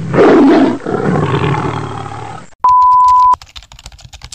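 Intro sound effects: a loud fiery whoosh and roar that fades over about two and a half seconds, then a steady high beep lasting under a second, with fast faint clicking under it from the beep onward.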